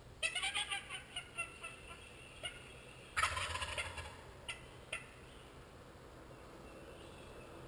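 Wild turkey gobbler gobbling: a run of quick rattling notes near the start, then a louder gobble about three seconds in, with a few sharp ticks between.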